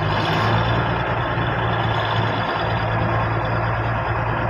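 A motor vehicle engine running steadily: a low drone under a constant rushing noise.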